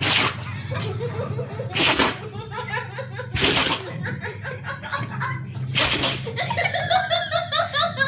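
A Labrador retriever sneezing four times, roughly every one and a half to two seconds. A person laughs between the sneezes, harder near the end.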